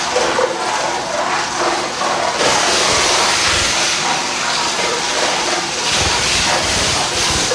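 Twin-shaft shredder's cutter discs crushing and tearing aluminium drink cans and plastic bottles, cups and toys: a loud, continuous din of crunching with many sharp cracks.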